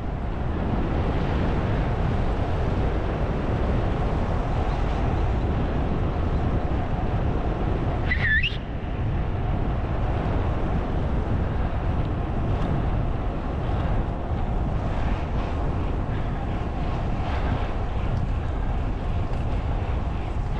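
Steady wind rushing over the microphone with a low road rumble, from a rider's camera on a road bike moving at speed. About eight seconds in, a brief high chirp sounds over it.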